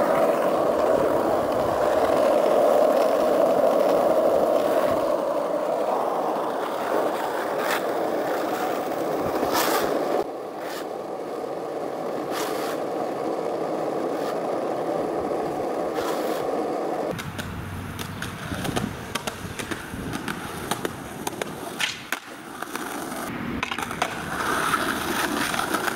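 Skateboard wheels rolling over an asphalt street: a steady gritty roll broken by a few sharp clicks. About seventeen seconds in the steady roll stops and gives way to scattered clacks and knocks.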